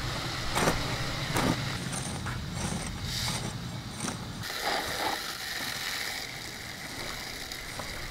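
Long-handled garden tool striking and scraping into loose soil under wood-chip mulch as a row is broken up for planting, one stroke about every half second to a second. About halfway through the strokes give way to a steady high hiss.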